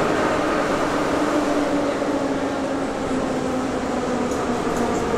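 Metro train running through the underground station: a steady rumble with a motor whine that slowly drops in pitch.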